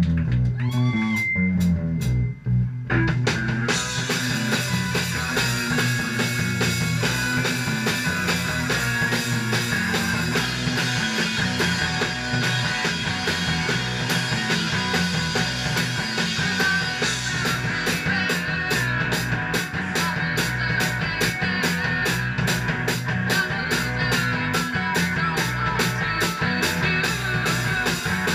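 Live rock band playing loudly: electric guitar and bass alone at first, then the full band with drum kit comes in about three seconds in. In the second half the drums keep a steady, even beat of about four hits a second.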